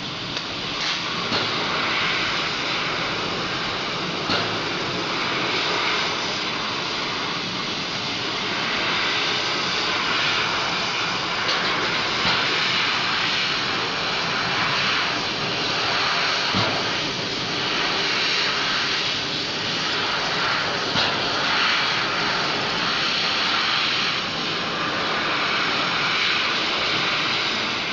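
Laser cutting and engraving machine running, a steady loud hissing rush of air with faint ticks here and there.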